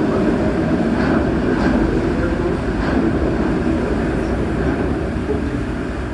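Rubber-tyred MP14 metro train running through a tunnel, heard from inside the car: a steady, loud rolling rumble that slowly gets quieter over the last few seconds.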